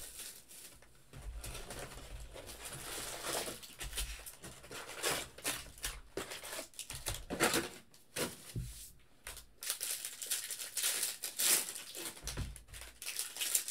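Plastic-wrapped trading card packs and their cardboard box being handled: wrappers crinkling and rustling, with a few soft thuds as packs are set down on the table.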